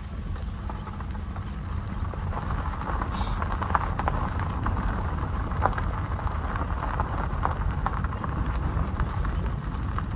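Vehicle driving over a rough dirt and gravel track: a steady low rumble with frequent small knocks and rattles as it bounces along.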